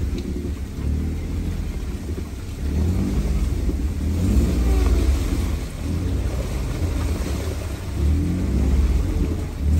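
Off-road vehicle's engine running on a trail, a low rumble that swells louder as the throttle is worked, from about three seconds in and again near the end.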